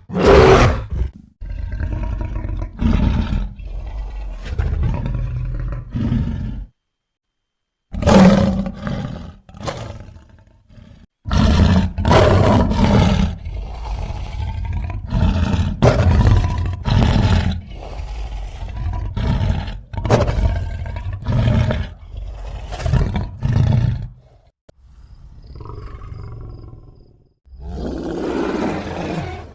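Cave bear creature sound effects from an animated series: a string of deep roars and growls, played as separate clips with short silent breaks between them.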